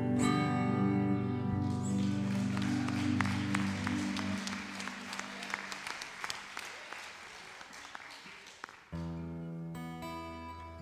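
The band's final chord rings out and fades, giving way to applause with many separate hand claps. About nine seconds in, soft sustained chords start up again.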